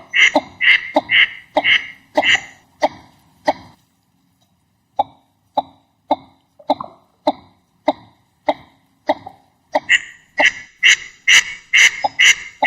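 Northern shoveler calling over and over, short calls at about two a second. The calls break off for about a second around four seconds in, come back fainter, and grow loud again near the ten-second mark.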